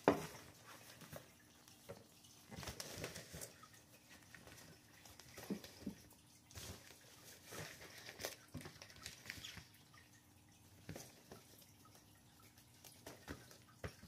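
Crinkly fabric cat tunnel rustling and crackling irregularly as kittens pounce on it and wrestle inside it, with a sharp click right at the start.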